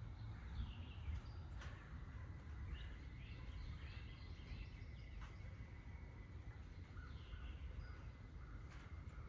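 Wind buffeting the microphone in a low, steady rumble, with birds chirping and calling over it in short repeated notes.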